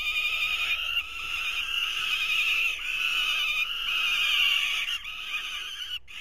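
Young peregrine falcons giving harsh, wailing food-begging calls over and over at the nest while an adult delivers prey. The calling cuts off suddenly near the end.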